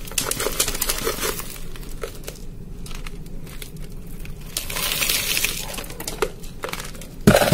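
Small pine bark chips and fine crushed gravel poured from a container into a plastic orchid pot, rustling and rattling in over two main pours of about a second each, with small clicks between. A sharp knock near the end.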